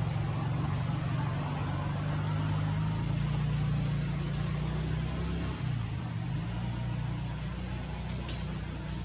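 A motor vehicle engine running with a steady low hum that shifts slightly in pitch about halfway through.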